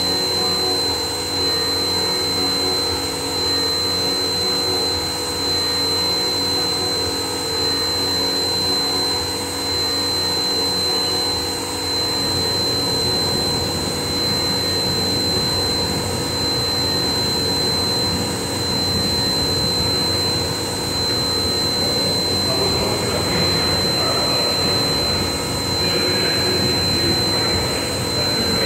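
CNC machine running steadily, with a constant high-pitched whine over a mechanical drone; a rougher, denser noise joins about twelve seconds in.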